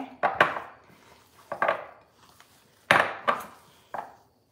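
Stiff fathead dough being worked by hand in a glass bowl, the bowl knocking and clacking against a granite countertop about six times at irregular intervals, some in quick pairs.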